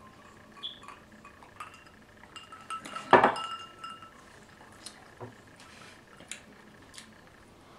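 A drinking glass set down on a wooden tabletop, a loud clink about three seconds in that rings on briefly, with a few faint clicks and taps around it.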